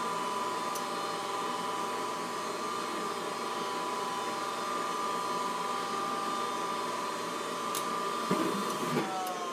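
Goodman furnace draft inducer motor running with a steady whine and hum, working normally. Near the end there are two clicks, and then the whine starts to drop in pitch as the motor winds down.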